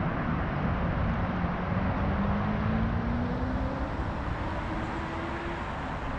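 Stihl chainsaw with a 20-inch light bar and full-skip chisel chain running under load as it cuts down into a log. The engine note climbs steadily in pitch through the second half.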